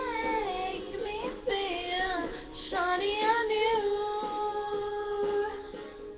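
A young female voice singing a melody, with gliding notes in the first half and long held notes in the second half.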